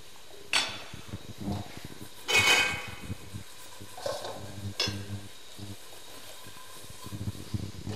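Stainless steel bowls and pots clattering: a few scattered clinks and knocks. The loudest comes about two and a half seconds in, with a brief metallic ring.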